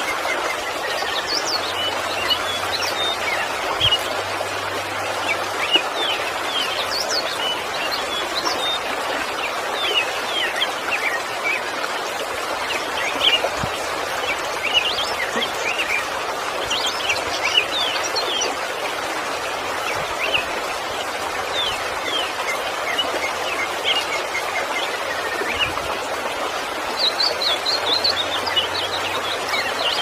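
Steady rush of a waterfall with many birds chirping over it in short, quick calls, in a rapid flurry near the end.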